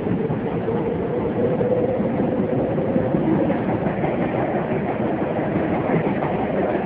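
Tokyo Metro subway train running through a tunnel, heard from inside the car: a steady rumble. A humming tone rises slightly in pitch and fades out about halfway through.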